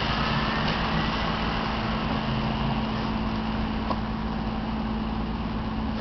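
Steady outdoor background noise with a constant low hum, unchanging throughout, and a couple of faint clicks.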